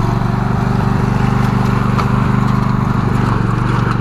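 Zero-turn riding mower's engine running steadily as the mower pulls up onto a flatbed trailer.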